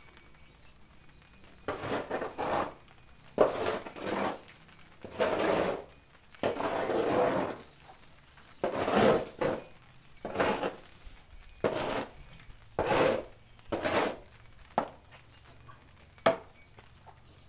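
A shovel scraping manure across a wet concrete floor in about a dozen short, uneven strokes, followed by a single sharp knock near the end.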